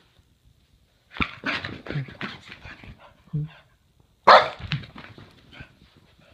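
Boston terrier barking: a quick run of short barks about a second in, then its loudest bark about four seconds in, followed by a few softer ones. These are play barks, given from a play bow to invite play.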